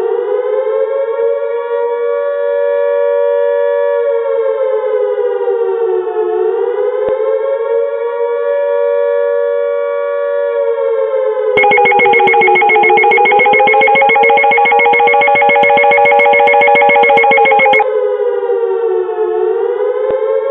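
Electronic alert siren holding a steady tone that sags in pitch and climbs back about every six and a half seconds. From about 11 to 18 seconds in, a louder, rapidly pulsing second alarm tone sounds over it, then drops away.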